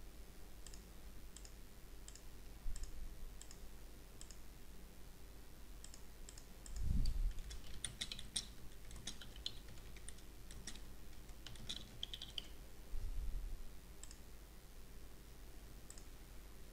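Faint computer keyboard typing, a quick run of keystrokes for a short line of text, with a string of evenly spaced clicks before it and a couple of single clicks near the end. Two low thumps come about seven and thirteen seconds in.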